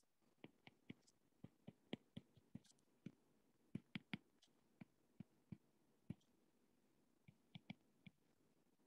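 Faint, irregular taps and clicks of a stylus tip on a tablet's glass screen during handwriting.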